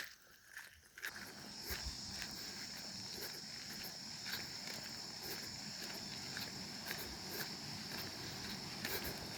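Insects droning, a steady high-pitched buzz that starts about a second in, with scattered footsteps on the trail.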